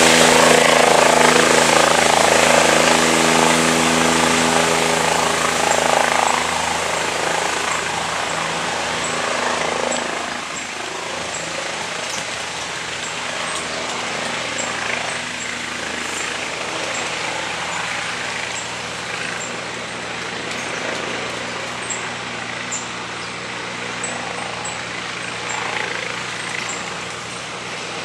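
Bell 407 helicopter hovering and moving off: steady rotor and turbine noise. It fades over the first ten seconds as the helicopter draws away, then holds steady.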